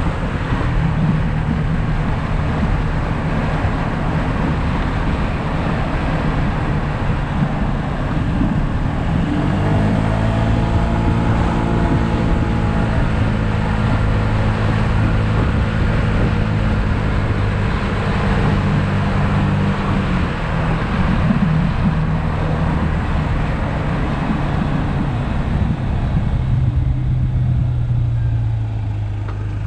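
Yamaha SMax 155cc single-cylinder scooter engine running at road speed under wind and road noise. Its steady hum comes through more clearly from about ten seconds in.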